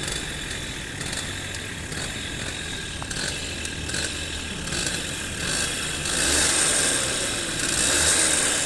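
TVS 50 moped engine running, getting louder about six seconds in and again around eight seconds.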